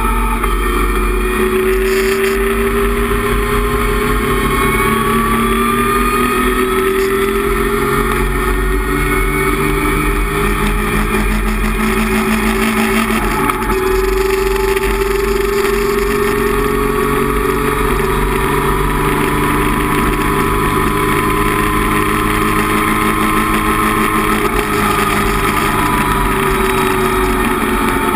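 Datsun 260Z race car's straight-six engine running hard, heard from inside the cabin. Its note climbs slowly for about twelve seconds, breaks briefly about halfway through, then climbs slowly again.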